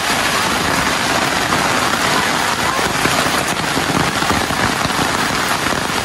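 Heavy rain pouring down in a steady, dense hiss.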